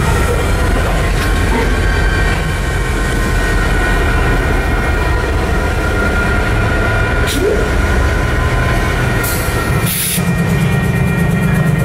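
Railroad crossing signal bells ringing steadily over the low rumble of a BNSF locomotive and its train passing over the road crossing.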